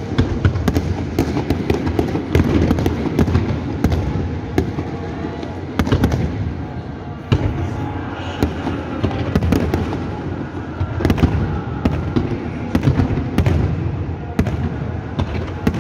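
Fireworks display going off: many sharp bangs and cracks from bursting shells at irregular intervals, over a continuous low rumble of more fireworks.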